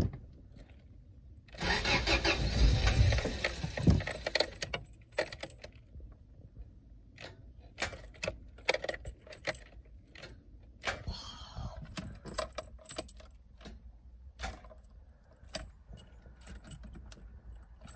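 Toyota Carina's starter cranking the engine for about two seconds without it catching. Scattered clicks and key-jingling follow, and the engine does not start, which the owner puts down to a drained battery or a failing starter motor.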